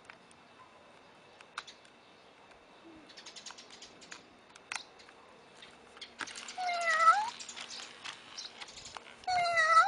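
FurReal Friends Daisy interactive toy kitten meowing twice through its speaker, about six and a half seconds in and again near the end, each electronic meow rising in pitch at its close, over a faint steady hum as the toy moves. Before the meows there are scattered light clicks and rustling as the toy is handled.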